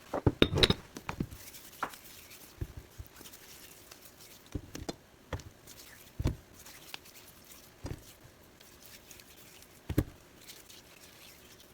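Kitchen handling noises as potatoes are prepared for baking: irregular light knocks, taps and clicks of food and utensils being handled, with a quick cluster at the start and heavier knocks about six and ten seconds in.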